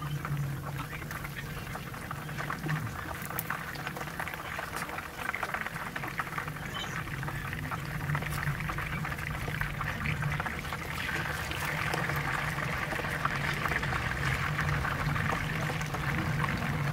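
Chicken frying in hot oil in a nonstick skillet: steady sizzling with many small crackles, growing louder about two-thirds of the way through as raw pieces go into the oil. A steady low hum runs underneath.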